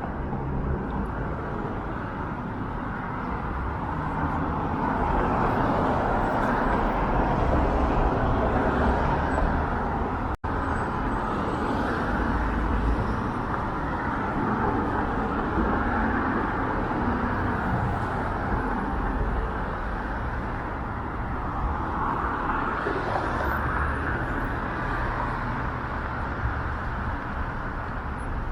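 Steady road traffic on a busy city street: cars passing close by in swells of tyre and engine noise. There is a momentary dropout in the sound about ten seconds in.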